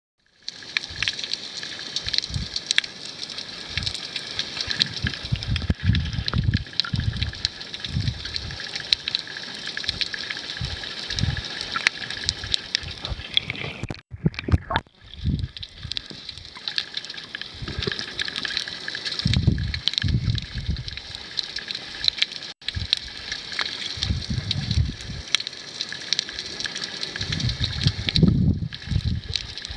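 Sea water heard through a camera held underwater: sloshing and gurgling surges with a constant fine crackle of tiny clicks. The sound drops out briefly twice, about halfway and again a little later.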